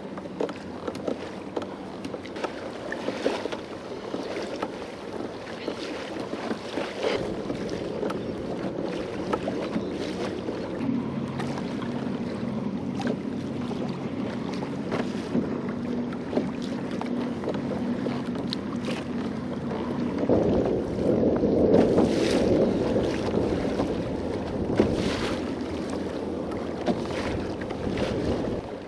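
Choppy water slapping and splashing against the hull of a Hobie Pro Angler 12 kayak, with wind buffeting the microphone. A steady low hum runs through the middle, and the splashing is loudest about two-thirds of the way through.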